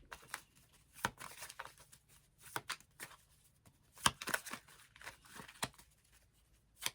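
Tarot cards being handled: a scattering of soft rustles, flicks and light taps of card stock, with short pauses between, the sharpest about a second in and around four seconds in.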